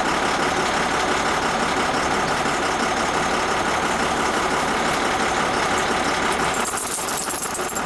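Truck engine running under way, sounding a little rough with a skip that the driver thinks may be a bad injector.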